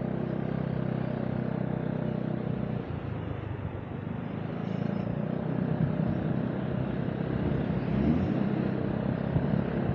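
Motorcycle engine running while riding in traffic, over steady road and wind noise. The engine note is steady at first, drops back about three seconds in, then rises and falls as the bike picks up speed in the second half.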